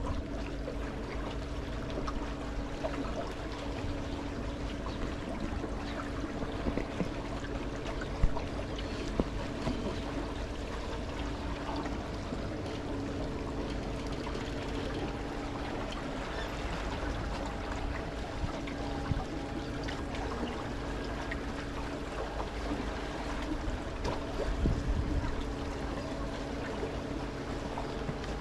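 Small canal boat's motor running at a steady hum, with water trickling and splashing along the hull, and a couple of brief knocks about eight and nine seconds in.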